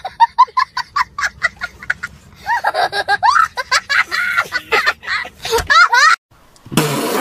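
A young boy laughing hard in quick repeated bursts, then a high voice wavering up and down in pitch for a few seconds. It breaks off in a short gap, and a loud, noisy sound starts near the end.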